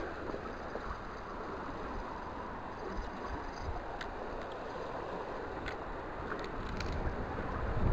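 Steady rush of flowing river water, with a few faint clicks about halfway through.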